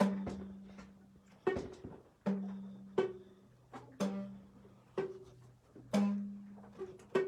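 Home-made rubber-band instrument plucked about once a second, each pluck leaving a short twanging note that dies away, alternating between a lower and a higher note.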